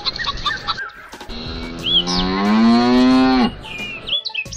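Hens clucking briefly, then a cow gives one long moo that rises slightly in pitch and breaks off abruptly, with small high bird chirps over it.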